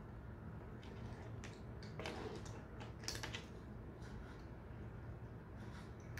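Scattered light clicks and taps from cats foraging dry food out of a plastic food puzzle board, irregular, with a busier cluster about three seconds in.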